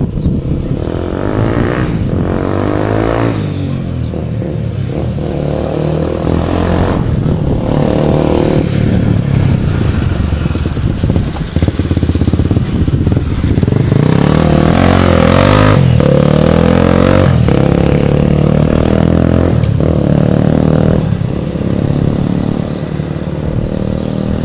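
A small engine running close by, its pitch rising and falling as it revs.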